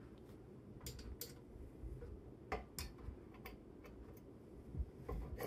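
Faint, irregular metal clicks and ticks as the threaded connector piece on a monitor stand's steel pole is twisted and handled by hand; it will not screw any further and has to be loosened first.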